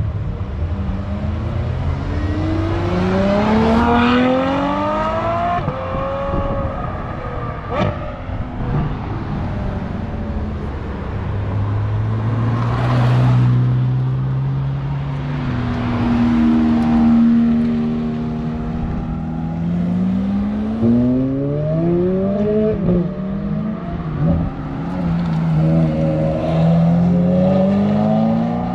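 Ferrari 458's naturally aspirated V8 accelerating hard, the revs climbing in several rising sweeps with gear changes between them, with steadier stretches of engine note between the pulls.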